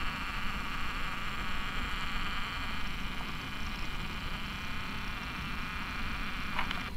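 Camcorder zoom motor whirring steadily as the lens zooms out, over a low rumble.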